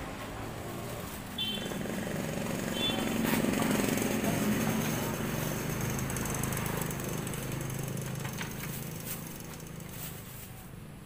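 A small engine passing on the road, growing louder over the first few seconds and then slowly fading, with a few light metal clicks from the food cart's tongs.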